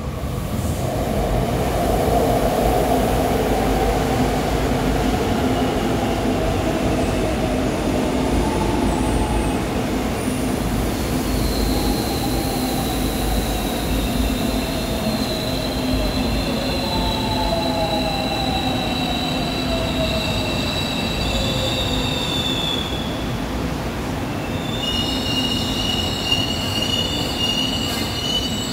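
Seoul Subway Line 4 ten-car electric train passing slowly through the station without stopping. Its running noise builds over the first couple of seconds and then holds steady. Over it, the traction motors' whine glides slowly in pitch, and high-pitched steady tones from the wheels set in about halfway and return more strongly near the end.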